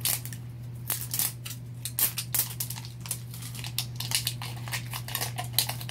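Plastic wrapping being peeled and torn off Mini Brands capsule balls by hand: a run of short, sharp crinkles and clicks, over a steady low hum.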